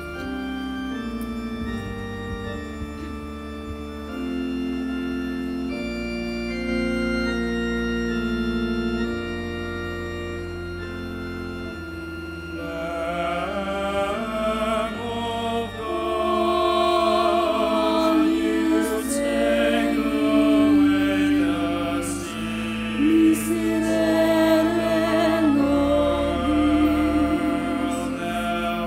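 Organ playing sustained chords as an introduction, then singers join in with the organ about twelve seconds in. This is sung liturgical music at the point in the Mass after the sign of peace.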